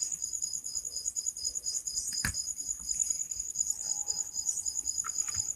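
Cricket chirping in the background, a steady, rapid, high-pitched pulsing, with a single sharp click about two seconds in.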